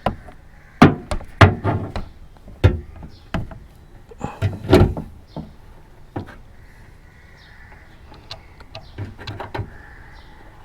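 Irregular plastic knocks and clicks as a car speaker is set back into its rear speaker tray. They are loudest and densest in the first five seconds, then fewer and fainter.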